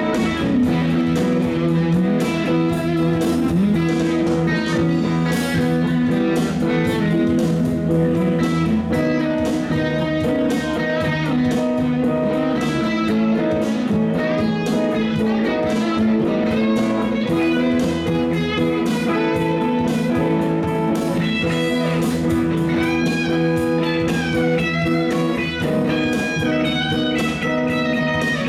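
Live band playing an instrumental passage on electric guitars, electric bass guitar and drum kit. In the second half a higher guitar line comes forward with bending notes.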